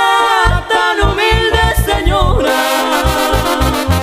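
Live Mexican banda music playing a corrido: voices carry a gliding melody over an even, regular bass pulse. About two and a half seconds in, the melody gives way to steady held brass chords.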